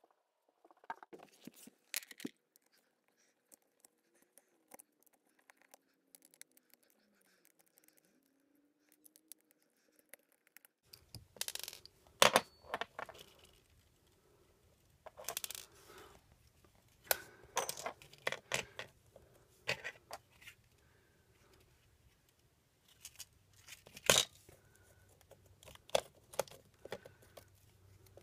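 Near silence for about the first ten seconds, then irregular sharp clicks, taps and scrapes of a Harmony 650 remote being taken apart by hand: the circuit board lifted out of the plastic housing and the rubber keypad sheets peeled away.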